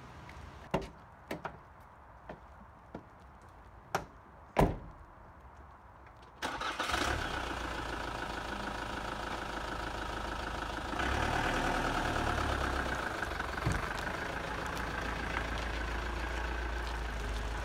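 A few sharp knocks, then an engine starts about a third of the way in and keeps running steadily, a little louder from about two-thirds of the way through.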